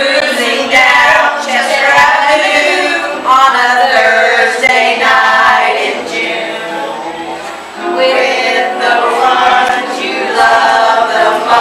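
A small group of women singing together from lyric sheets, with a brief dip between phrases a little past the middle.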